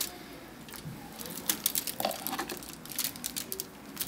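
Aluminium foil crinkling in scattered small crackles as hands press stuffing into a raw filet mignon lying on it.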